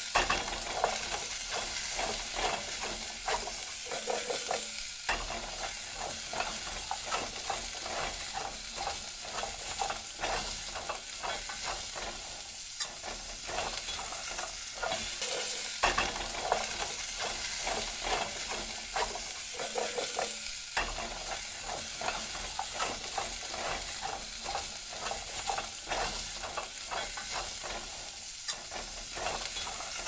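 Vegetables stir-frying in a hot pan: a continuous sizzle, with frequent irregular clicks and scrapes as the food is stirred and tossed in the pan.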